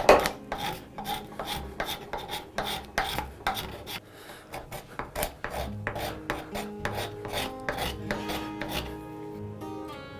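Hand filing of a hardwood handle scale: a sharp knock at the very start, then a run of rasping strokes, about two a second, that stop about a second before the end. Background music plays underneath.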